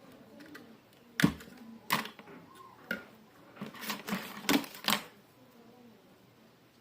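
Irregular sharp clicks and knocks, about eight in a few seconds, the loudest a little over a second in, from hand work on a ceiling fan's parts.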